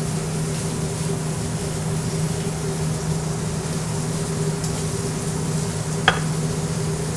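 Steady kitchen background noise: an even hiss with a low hum, and one short sharp click about six seconds in.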